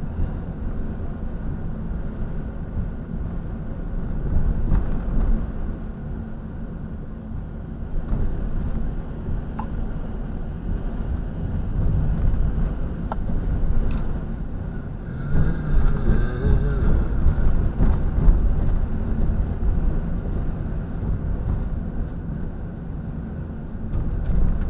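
Vehicle driving at low speed, heard from inside the cab: a steady low engine and road rumble that swells briefly around the middle.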